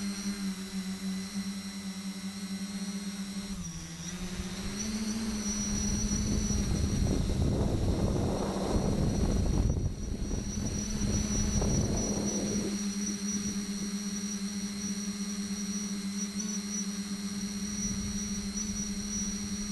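Tricopter's three brushless electric motors and propellers running in flight: a steady buzzing drone with a thin high whine above it. The pitch dips briefly about four seconds in, then settles a little higher. From about six to thirteen seconds a loud rush of wind over the onboard camera's microphone covers it.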